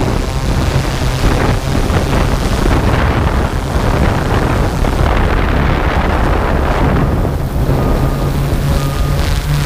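Quadcopter drone's propellers humming steadily, with wind rushing over its camera microphone. Two faint short beeps come near the end.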